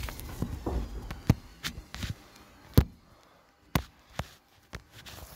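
Irregular knocks and taps of fingers handling a phone close to its microphone, about a dozen in all, the loudest a little under three seconds in.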